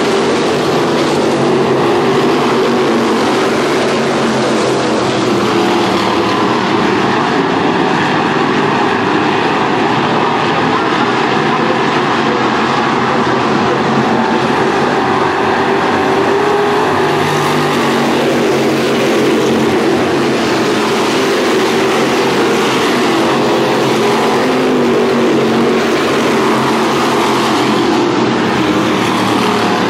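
A field of V8 Thunder Stock race cars running at speed, a loud, continuous engine din that swells twice as the pack passes, once past the middle and once near the end.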